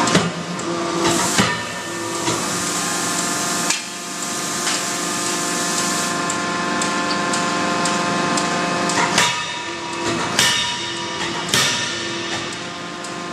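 Automatic closed-die forging line running: a steady machine hum with hissing. Sharp metal clanks break through it, two near the start and three about a second apart near the end.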